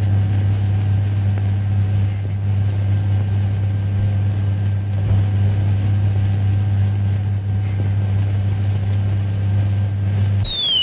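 A steady, loud low electrical hum with a faint higher overtone, cutting in and out abruptly, like a sci-fi machinery sound effect in an old film soundtrack. Just before the end, a high whistling tone begins sliding steeply downward.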